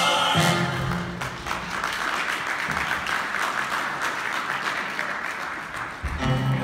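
Audience applauding after a sung number ends, the last held note fading out in the first second. Music comes back in about six seconds in.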